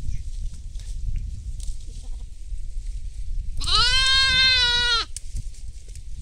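A single high-pitched bleat from a young animal of the goat and sheep flock, about a second and a half long, rising slightly and dropping off at the end.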